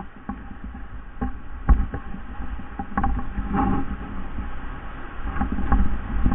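Footsteps crunching through dry leaves, grass and twigs, with irregular snaps and knocks, and low rumble from wind and handling on a body-worn camera's microphone.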